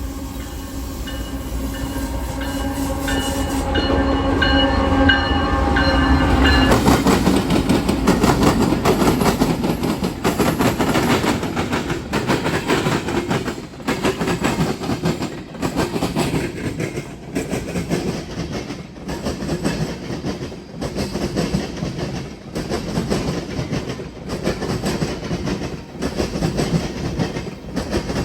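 Norfolk Southern freight train at a diamond rail crossing. For the first six seconds or so a locomotive horn chord sounds over the diesel engines as they come closer. Then the train passes over the diamond, its wheels banging over the crossing gaps in a loud, rhythmic clatter, one cluster of bangs about every one and a half to two seconds as each car crosses.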